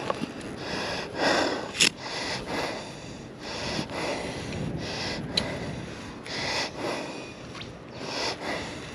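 A person breathing hard in repeated breaths, roughly one every second, with a sharp click about two seconds in.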